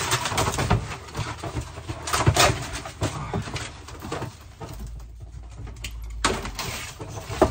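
Camper shower wall board being pulled loose and torn out by hand: irregular knocks and scrapes, with a quieter stretch about two-thirds of the way through.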